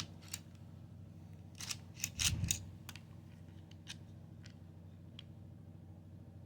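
Small plastic clicks and scrapes from a 3D-printed hidden blade's parts being handled and worked, loudest in a short run of clicks about two seconds in, then a few faint ticks.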